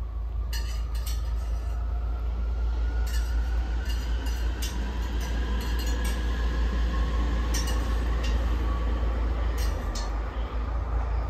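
Sharp, scattered clicks of juvenile Eurasian red squirrels cracking and chewing sunflower seeds, about nine in all, over a steady low rumble and a faint whine that slowly rises in pitch.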